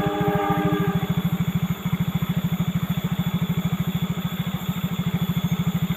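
Motorcycle engine idling close by, a steady fast putter of about ten beats a second. A short horn-like tone sounds over it right at the start.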